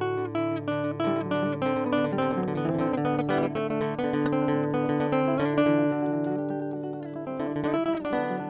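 Acoustic guitar music, with quick plucked and strummed notes.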